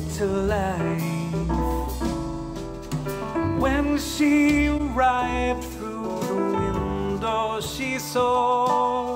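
A song with a bass line, chords and a wavering melody, played back through a pair of studio monitors and recorded by a microphone in the room. The monitors are first a JBL 306P MKII pair, then an Adam Audio T7V pair.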